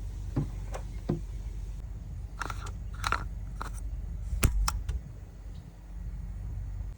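Car engine idling with a steady low hum, the 2010 Hyundai Sonata's 3.3-litre V6 run after fresh oil, under a series of sharp clicks and knocks from handling, the loudest about four and a half seconds in.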